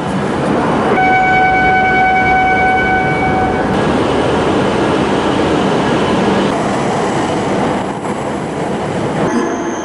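E7 series Shinkansen train moving along an underground station platform: a steady rushing run noise, with a steady high tone laid over it for about two and a half seconds starting about a second in.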